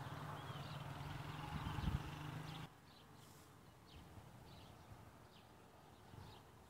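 Small birds chirping: short, high, falling chirps about two a second. A low steady hum runs underneath for the first few seconds and cuts off abruptly.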